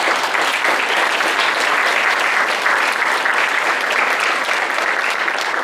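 Audience applauding loudly, many hands clapping at once.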